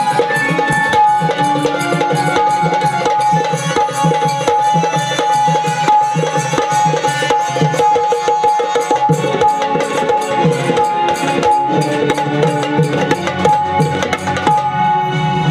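Instrumental Marathi gondhal folk music: fast, dense hand-drum rhythm on a pair of folk drums, with one steady held note sounding above it throughout.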